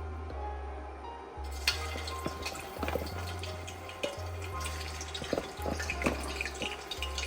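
Kitchen water sounds: water from a tap dripping and splashing in a sink, with many small sharp clicks and clinks. Background music with a low stepping bass line plays underneath.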